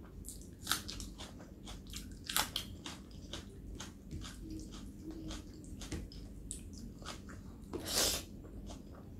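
Close-up mouth sounds of a person eating a meal by hand: chewing, with many small clicks and smacks, and a louder mouthful going in near the end.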